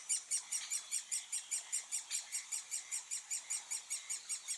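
Woodpecker nestlings calling from inside their nest hole in a tree: an unbroken chorus of high, rapid begging calls, about eight a second.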